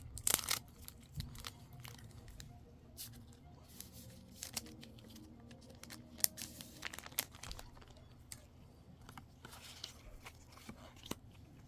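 Pokémon card booster pack being torn open, its foil wrapper crinkling, then the cards being handled: one sharp tear about half a second in, followed by scattered light crinkles and clicks.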